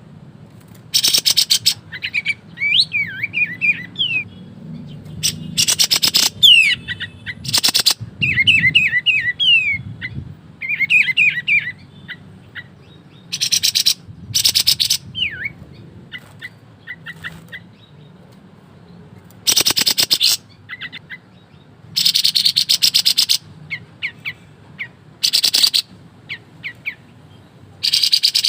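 Kapas tembak songbird singing: short, loud, rapid rattling bursts repeated about every two to three seconds. Between the bursts come quick whistled chirps that slide up and down.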